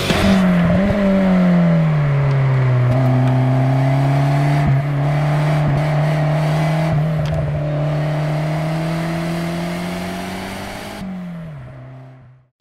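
Ford Escort RS Cosworth's turbocharged 2.0-litre four-cylinder engine running as the car drives. The pitch drops over the first couple of seconds and then holds steady for a long stretch, with a short rise of revs near the end before the sound fades away.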